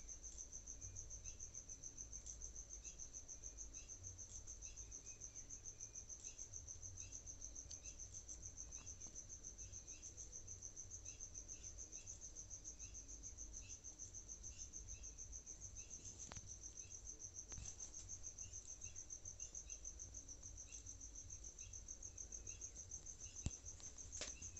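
Faint, continuous high trill of a cricket, evenly pulsing, with softer short chirps repeating lower down and a few light clicks near the end.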